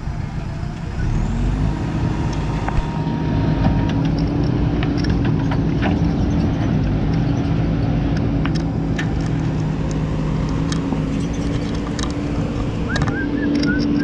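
JCB backhoe loader's diesel engine running under load as the backhoe arm digs, its note rising about a second in and then holding steady, with scattered clicks and knocks over it.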